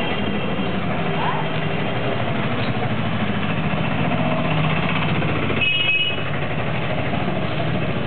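Steady street-traffic noise heard from a moving cycle rickshaw: a continuous engine-like rumble, with a short high-pitched tone about six seconds in.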